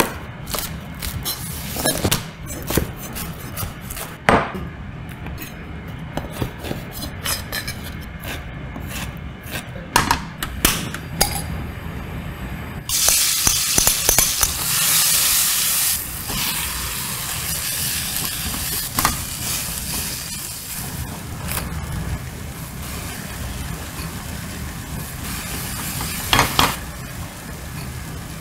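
A kitchen knife chops mustard greens on a wooden cutting board in a series of sharp, uneven chops. About 13 seconds in, kimchi goes into a hot oiled nonstick pan with a sudden loud sizzle that settles into steady frying, with a few knocks of the spatula against the pan.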